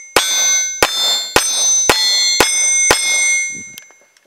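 Six rapid shots from a Glock 17 9mm pistol, about two a second, each answered by the ringing clang of an AR-500 steel target. A few small clicks follow near the end.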